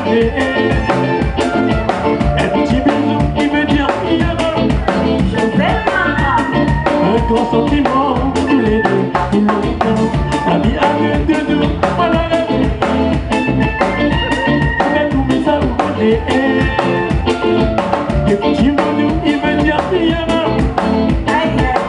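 Live band playing with a steady beat on drum kit, electric guitars and keyboard, with singing into microphones over it.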